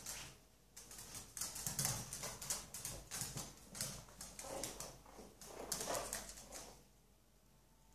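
A Yorkshire terrier and her puppies scuffling in play on a hard floor: quick irregular clicks and scrapes of paws and claws in uneven bursts, dying away near the end.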